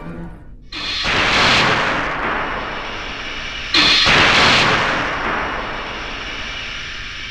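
Two film sci-fi explosion sound effects, each a sudden blast about three seconds apart, followed by a long hissing, ringing decay.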